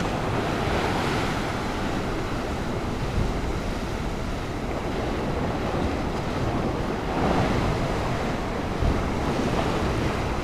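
Ocean surf washing in a sea that has picked up a little, with wind buffeting the microphone. The wash swells about a second in and again around seven seconds.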